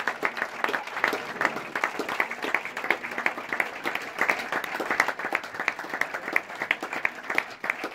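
Crowd of spectators applauding steadily, many hands clapping at once, at the end of a tennis match.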